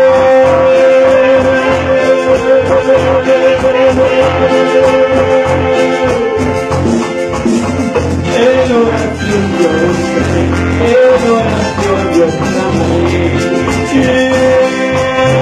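Live band playing Latin American-style music with drums, bass, keyboard and saxophones, and a man singing into a microphone. A long note is held through the first six seconds and again near the end, with wavering sung lines in between.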